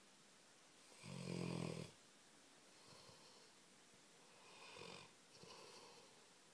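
Labrador snoring in its sleep: one loud snore with a clear pitch about a second in, then three softer snoring breaths.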